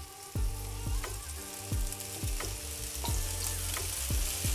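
Frying sizzle on a hot teppanyaki griddle plate as cooked rice is scraped onto it from a bowl, with repeated short scrapes and taps of the spatula about every half second.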